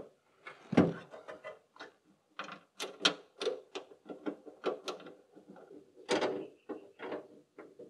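Irregular sharp clicks and light knocks of hand tools and metal parts being handled and fitted, with a heavier knock about a second in.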